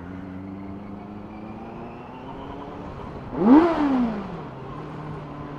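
Benelli 600i inline-four engine through its stock exhaust, pulling steadily under way with its pitch slowly creeping up. About three and a half seconds in the revs rise sharply and fall back within about a second, the loudest moment.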